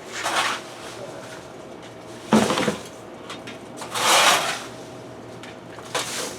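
Hand work in garden soil and plant debris: four short scraping, rustling noises about two seconds apart, the second starting sharply and the third lasting longest.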